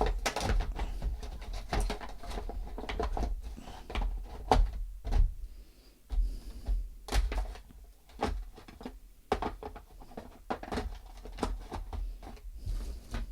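Handling noise as a motorbike alarm kit's parts and cables are packed back into their packaging: an irregular run of clicks, knocks and rustles.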